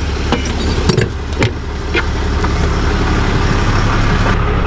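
Vehicle engine idling steadily with a low rumble, with a few sharp clicks in the first second and a half.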